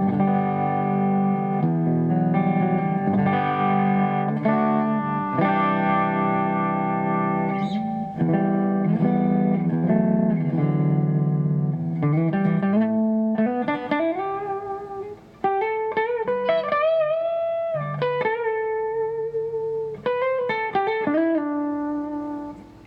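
Kiesel Osiris electric guitar with beryllium pickups, middle pickup position, played clean through a Kemper Profiler's Fender clean profile. Strummed chords ring for the first twelve seconds or so, then single-note licks follow with upward slides and a held note with vibrato.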